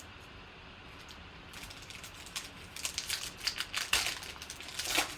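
A card-pack wrapper crinkling and tearing as it is opened. The rapid crackles start about a second and a half in and grow louder, peaking near the end.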